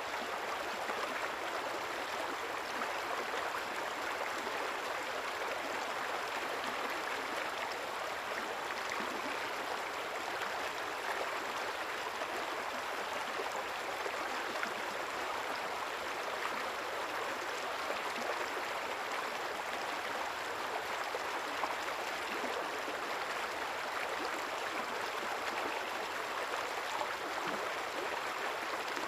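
A quiet river flowing steadily: an even rush of water with no separate splashes or breaks.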